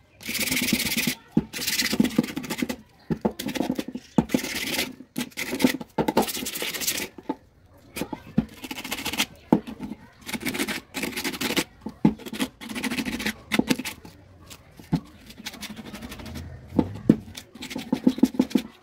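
Sandpaper rubbed by hand over the edge of a small metal plate, in repeated back-and-forth strokes about one a second, quicker and shorter near the end.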